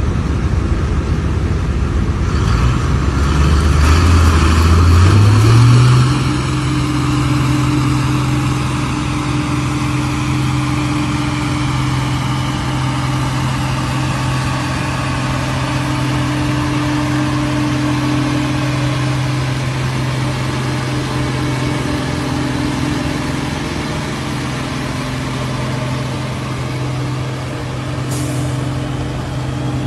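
Farm stock pulling tractor's diesel engine revving up over the first six seconds, then held at steady high revs under full load as it drags the weight sled.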